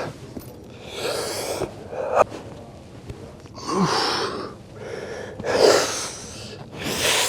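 A man breathing hard through a set of weightlifting reps, with a forceful exhale at each rep about every one and a half to two seconds.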